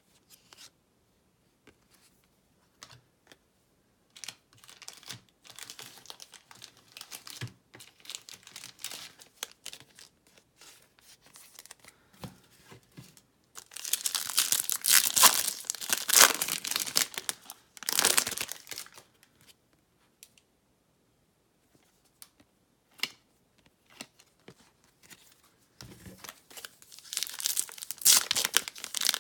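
Foil wrapper of a Topps Chrome baseball card pack being torn open and crinkled by hand, loud for a few seconds about halfway through and again near the end. Before that, soft clicks and rustles of cards being handled.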